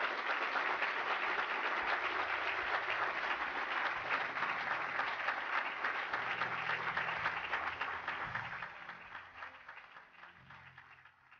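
Audience applauding: dense, steady clapping that thins out and fades over the last few seconds.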